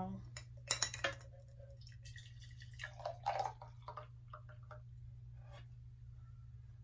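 Green celery juice poured from a plastic mixing bowl into a glass jar of ice, splashing and trickling for about a second and a half, with a few sharp glassy clinks about a second in and small drips after the pour. A steady low hum runs underneath.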